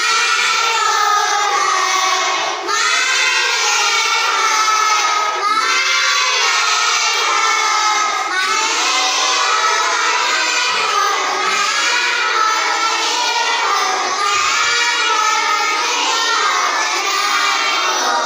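A class of young children reciting aloud together in a sing-song chant, their voices in unison, in phrases a few seconds long with brief breaths between.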